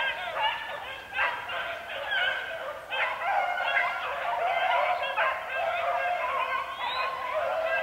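A pack of young beagles baying in full cry while running a rabbit, many hound voices overlapping without a break.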